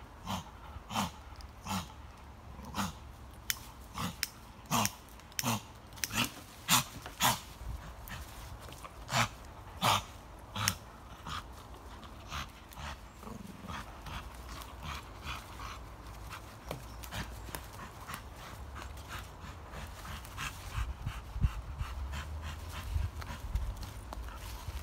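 Pocket bully dog making short, sharp snorts and grunts as it tugs at a branch still attached to a tree. The bursts come about once a second for the first ten seconds or so, then grow softer and more scattered.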